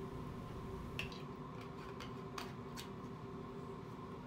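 Quiet room with a steady low hum and a few faint, short clicks, about one a second early on.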